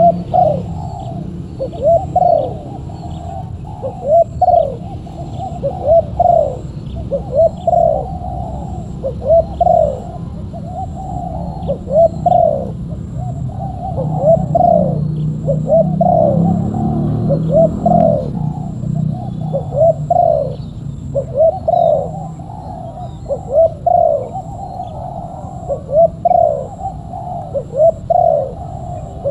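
Spotted dove (tekukur) cooing over and over, short arched coo notes often coming in pairs, a phrase every second or two.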